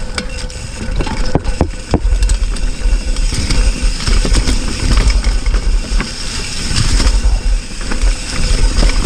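Wind buffeting the action camera's microphone and tyres rumbling over a dirt trail as a Cannondale hardtail mountain bike descends at speed, with a couple of sharp knocks from the bike hitting bumps about a second and a half in.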